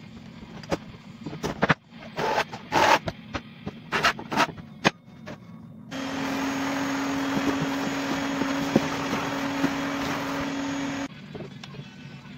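Knocks and clatter as a drilled steel bar and spring clamps are handled on a workbench. Then a small electric motor runs steadily with a low hum for about five seconds and cuts off suddenly.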